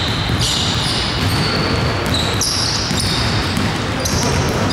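Basketball play on a hardwood gym floor: sneakers squeak sharply several times while the ball is dribbled and players' feet patter across the court.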